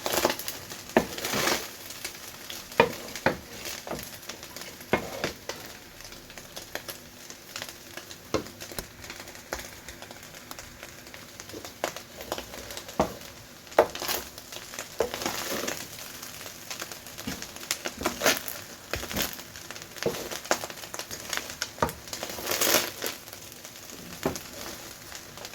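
Fried rice being stirred in a hot pan: a cooking utensil scrapes and knocks against the pan at irregular moments over a light, steady sizzle.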